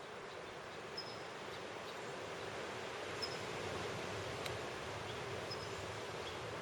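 Steady wash of ocean surf at a cove, with a small bird giving a few short, high chirps about every two seconds.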